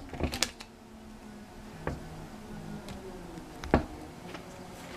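Stiff plastic-coated baseball cards being handled and shuffled by hand: a few sharp clicks and taps of card edges, the loudest a little under four seconds in, over a faint low hum.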